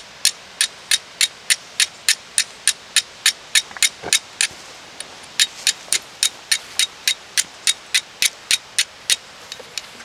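A steel fire striker struck down against a hand-held piece of flint to throw sparks into chaga tinder: short, sharp strikes about three a second, pausing briefly about halfway through.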